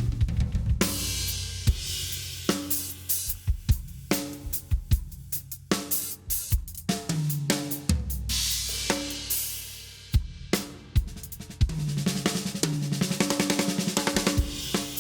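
Acoustic drum kit played in a groove of kick, snare and hi-hat with cymbal crashes. Fast tom fills step down in pitch, once right at the start, again about two-thirds of the way through, and near the end.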